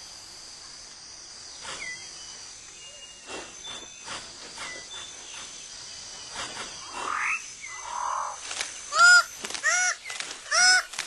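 Rainforest ambience: a steady high insect hum with scattered faint bird chirps and whistles and a rising call. From about nine seconds in, a bird gives a run of loud, short calls, each with a clear pitch.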